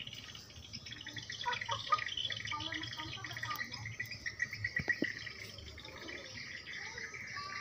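Background birds chirping and insects trilling steadily, with two faint ticks about five seconds in.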